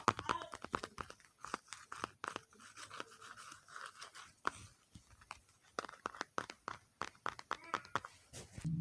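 Tapping and clicking on objects in quick, irregular strokes, several a second, with soft scratchy brushing between them. A low steady hum starts right at the end.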